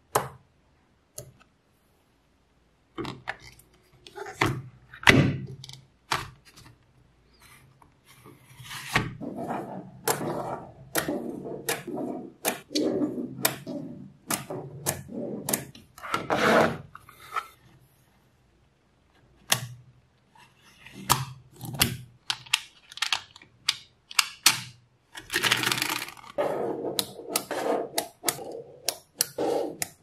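Small magnetic metal balls clicking and snapping together as they are pressed into rows and slabs by hand. Between the single clicks come longer stretches of dense rattling as clusters of balls shift against each other.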